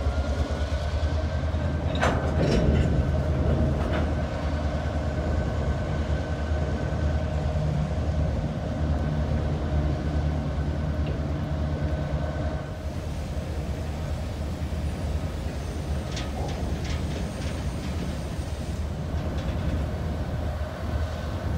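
Freight train cars rolling slowly past on curved track: a steady low rumble with a few sharp metallic clanks from the wheels and couplers, near the start and again about two-thirds of the way in.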